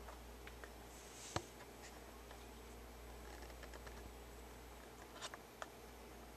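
Quiet room tone with a faint steady low hum, broken by a few small clicks: one sharp click about a second and a half in and a couple of softer ones near the end.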